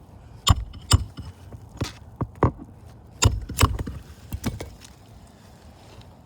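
Roughly eight sharp knocks and taps, some in quick pairs, from hand tools worked on an asphalt shingle roof during a shingle removal and replacement. The knocks stop about four and a half seconds in.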